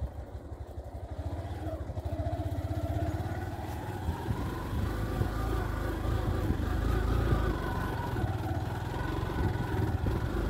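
Motorcycle engine running while riding along a narrow dirt path, its note rising and falling with the throttle.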